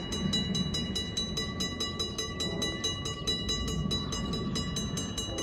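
WRRS mini bell at a railroad grade crossing starting to ring right at the start, a rapid, even ding-ding-ding that warns of an approaching train. A low rumble sits underneath.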